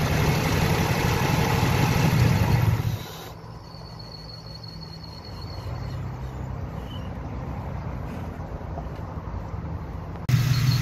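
LT1 V8 engine running with a thin high squeal from the mechanical cooling fan freewheeling before its fan clutch engages: a faulty new fan and clutch, not the water pump. The engine sound drops sharply about three seconds in and comes back loud near the end.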